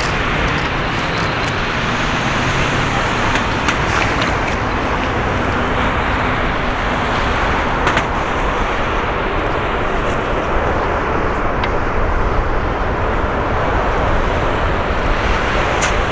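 Boeing 777F's GE90 jet engines, a loud steady rushing noise as the freighter lands and rolls out, with a few faint clicks.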